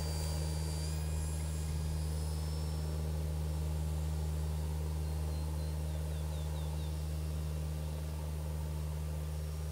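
Electric motor and propeller of a Tower Hobbies Cessna 400 RC plane whining in flight, the whine stepping up in pitch during the first couple of seconds, then fading as it climbs away, over a steady low hum.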